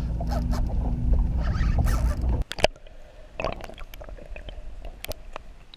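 A small boat's outboard motor idling, a steady low hum with faint scattered clicks. About two and a half seconds in, it gives way to quieter, muffled underwater sound with a few sharp clicks.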